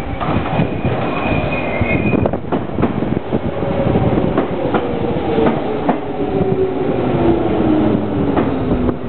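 Shizuoka Railway electric train slowing as it arrives at a station: its motor whine falls steadily in pitch as it brakes, over the clatter of the wheels on the rail joints. A high squeal from the wheels sounds briefly in the first two seconds.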